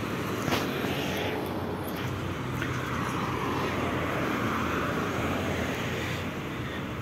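City street traffic: cars driving past with a steady low engine rumble and tyre noise that swells in the middle as a car goes by. A brief click about half a second in.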